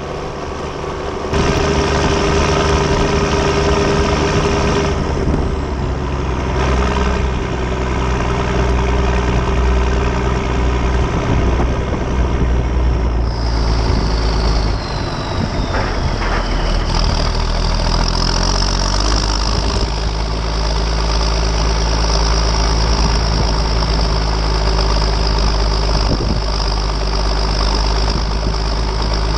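Ford TW-25's turbocharged six-cylinder diesel engine running steadily as the tractor drives along. From about 14 to 17 seconds in, a high turbo whine falls in pitch as the engine eases off.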